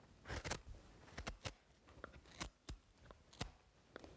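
Carving knife slicing shavings off the end of a wooden axe handle, a quick series of short paring cuts.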